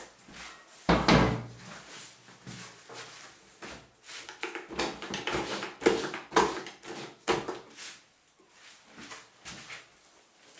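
Irregular knocks and thumps: one heavy thump about a second in, then a busy run of knocks and clatter through the middle, quieter toward the end.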